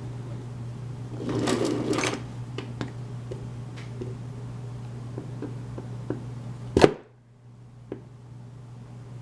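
Hand tools working on a lock cylinder while trying to remove its stuck cap: a burst of scraping about a second in, scattered small metal clicks, and one sharp, loud click near the end, over a steady low hum.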